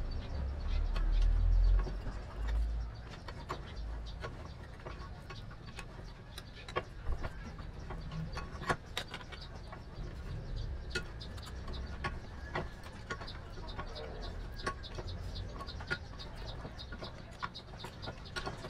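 Needle-nose pliers gripping and bending a small metal model-car door panel held in a bench vise, giving scattered small metallic clicks and ticks. A low rumble in the first two seconds.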